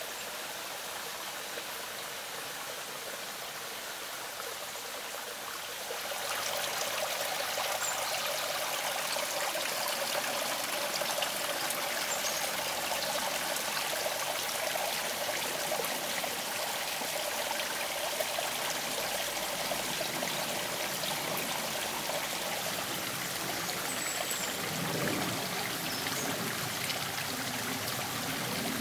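Spring water running and trickling over stone slabs and rocks in a small brook channel: a steady rush of water that gets louder about six seconds in.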